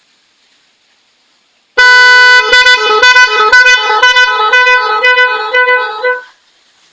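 Eight-tone musical horn playing a tune of quick changing notes. It comes in very loud about two seconds in and cuts off after about four seconds.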